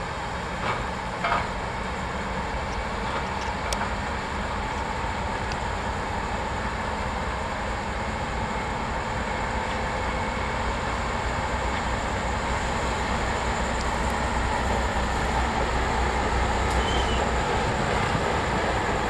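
Two coupled diesel locomotives running hard under load as they haul a train, their low engine rumble growing steadily louder.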